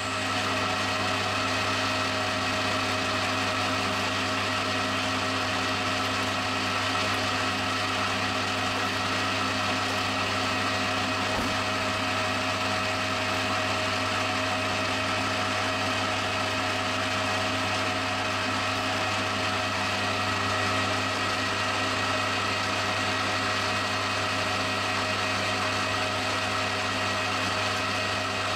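Metal lathe running steadily, its spindle turning an aluminium workpiece as the tool takes a cut. The sound is a continuous mechanical hum with several steady whining tones.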